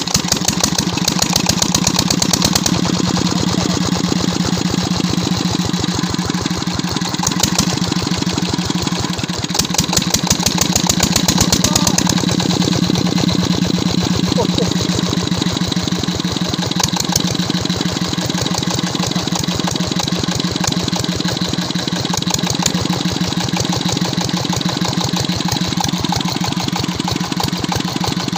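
16 hp diesel engine running steadily with a rapid, even knocking beat from its firing.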